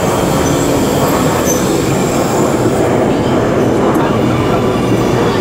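Amsterdam GVB metro train pulling into the station and running along the platform close by, with a steady loud noise of wheels on rails.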